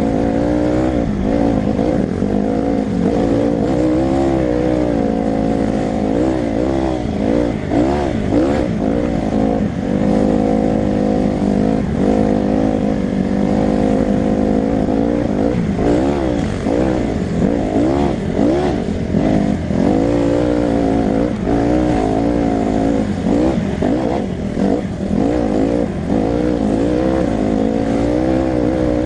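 Honda CRF150R dirt bike's single-cylinder four-stroke engine running under load on a trail ride, its pitch rising and falling over and over with the throttle, heard close up from the rider's helmet, with occasional knocks from the bumpy ground.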